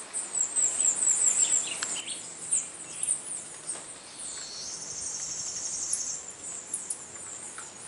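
Hummingbirds chirping at sugar-water feeders: a steady scatter of very high, quick chips and downward flicks, with a rapid buzzy trill about halfway through.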